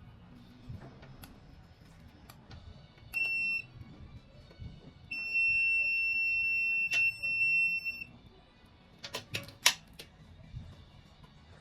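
An electronic beeper sounds a steady high tone: a short beep about three seconds in, then a long one lasting about three seconds. A few sharp clicks follow near the end.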